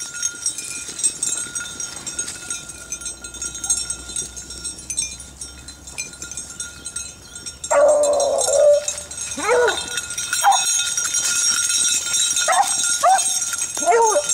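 Beagles baying. About halfway through, one longer call is followed by a string of short howls that rise and fall: hounds giving voice as they run a rabbit's scent.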